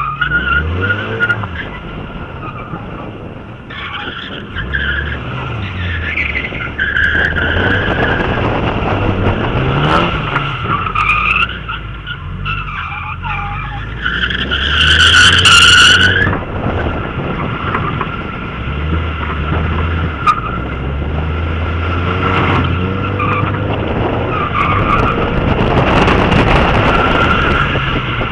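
Mazda MX-5 Miata drifting: its four-cylinder engine revs up and down while the tyres squeal through repeated slides. The loudest, highest squeal comes about halfway through.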